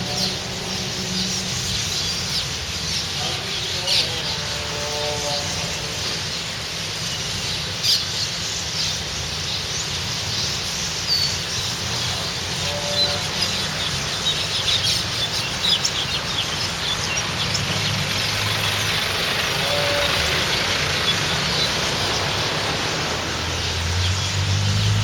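A large flock of small birds perched on wires, chirping in a dense, continuous chatter that swells in the second half, over a steady low hum of traffic.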